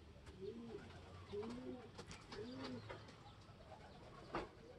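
Racing pigeons cooing softly: three coos about a second apart, each rising and falling in pitch. A single sharp click comes near the end.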